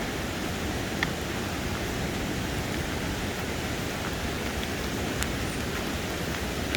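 Steady rushing of a waterfall running high and muddy after rain, with a few faint clicks.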